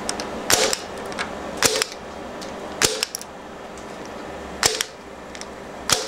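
Impact punch-down tool with a 110 blade snapping five times, about a second apart. Each snap seats one wire of a Cat5e cable into the 110 block of a patch panel and trims off its end in the same stroke.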